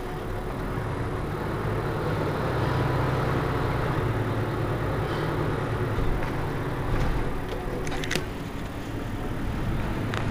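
Mercedes-Benz Citaro C2 Euro 6 city bus's diesel engine running with a steady low hum that swells slightly after a couple of seconds. A few brief sharp sounds come about eight seconds in.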